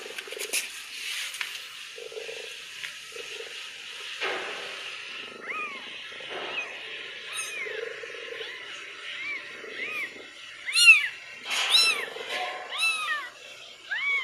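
Newborn kittens mewing: many short, high-pitched cries, each rising and falling in pitch. They come thick from about halfway through, and the loudest is a little before the end.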